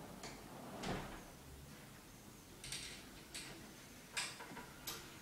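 Faint footsteps and a few light knocks on a hard floor and low pen gates: a soft thump about a second in, then several short scuffs and clicks in the second half.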